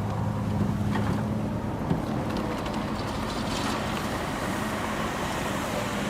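Heavy diesel engine of construction machinery running steadily with a low hum, its tone fading somewhat after the first couple of seconds.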